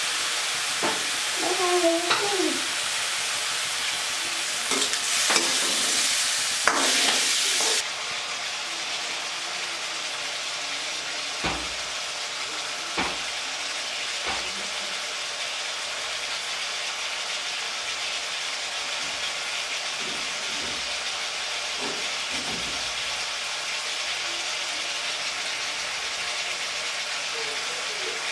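Rolled yak-beef slices frying in oil in a steel wok, a steady sizzle that is louder and brighter for the first eight seconds or so, then drops suddenly to a softer sizzle. A few light knocks of the steel ladle on the wok come in the middle.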